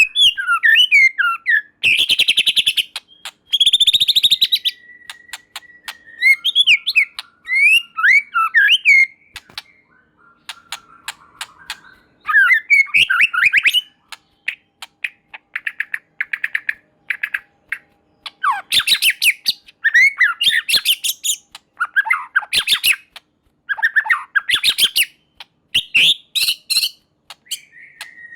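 White-rumped shama (murai batu) singing in loud, varied phrases: gliding whistled notes alternate with fast rattling trains of clicks, with short pauses between phrases.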